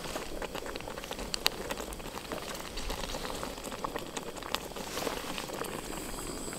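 Chicken and tomato stew simmering in a camping pot: irregular small pops and crackles over a steady hiss.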